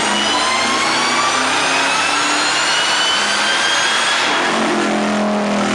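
1999 Ford SVT Lightning's supercharged V8, fitted with a Kenne Bell 2.3 supercharger, accelerating hard. The pitch climbs steadily for about four seconds, then drops at a gear change and pulls again from a lower note.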